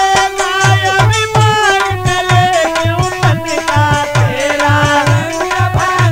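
Instrumental interlude of a Hindi nirgun bhajan: a held, wavering melody line over a steady beat of hand drums.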